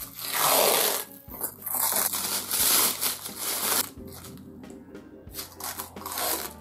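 Crumpled plastic film and dried liquid-latex masking crinkling and rustling as they are handled and peeled off a resin figure. The rustling comes in loud bursts in the first second and again around three seconds in, then goes quieter.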